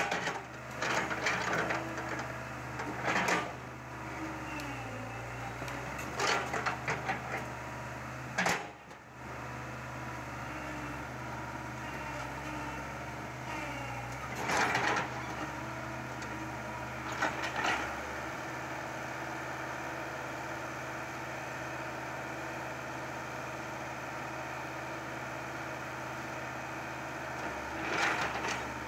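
Caterpillar hydraulic excavator's diesel engine running steadily, with several short louder clanks and crunches as the machine works.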